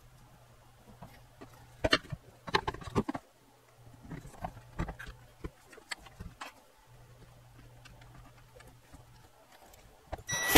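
Clicks and knocks of plastic and metal parts being handled on an opened soundbar, in scattered clusters over a faint steady hum, with one brief louder sharp noise near the end.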